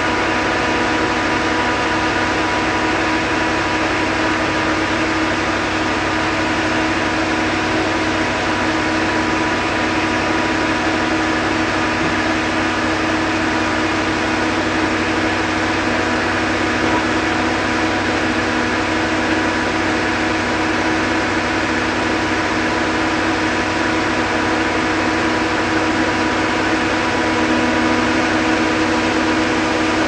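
Claas Lexion 770 combine harvester with a Geringhoff nine-row corn header running under load while harvesting corn: a loud, even machine drone layered with several steady hums and whines that hold their pitch throughout.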